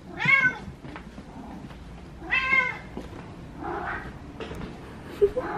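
A hungry domestic cat meowing for its food: two clear meows about two seconds apart, each rising then falling in pitch, then a softer, shorter call.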